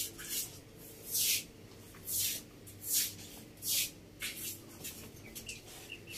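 Broom sweeping a floor: short brushing swishes, one stroke about every second, growing softer over the last couple of seconds.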